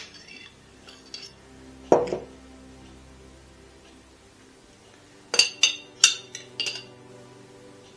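Kitchen utensils clinking against dishes: a dull knock about two seconds in, then four quick clinks a little past the middle. Quiet background music plays throughout.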